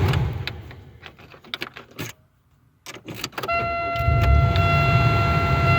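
1999 Chevrolet Malibu's 3.1-litre V6 dies away as it is switched off, followed by clicks of the key in the new ignition lock cylinder. About three and a half seconds in a steady electronic chime comes on, and a moment later the engine is running again, started on the new key.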